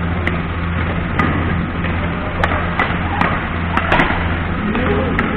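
Badminton rackets striking a shuttlecock in a fast rally: a string of sharp, short hits at irregular intervals, several close together near the end, over a steady hum from the hall.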